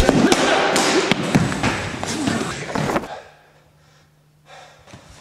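Fight scene with swords and sticks: a rapid series of weapon strikes and thuds, several a second. About three seconds in it drops abruptly to a quiet low hum.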